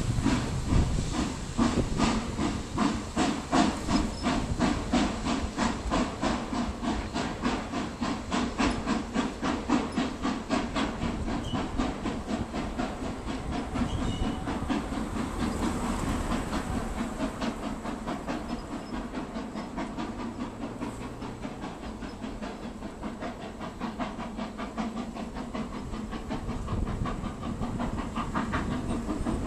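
Steam locomotive pulling a passenger train away, its exhaust beats coming in a steady quick rhythm with hissing steam, slowly fading as the train draws off.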